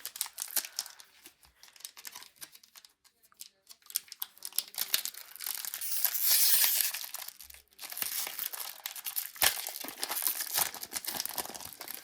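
Foil wrapper of a Pokémon trading-card booster pack crinkling and being torn open, with a long continuous tear about five to seven seconds in, amid crackly handling of the foil.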